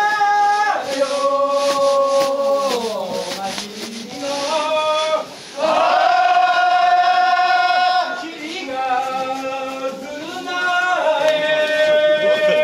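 A group of men singing a traditional shrine-offering song together in long held notes that step from pitch to pitch, with a brief pause for breath about five and a half seconds in.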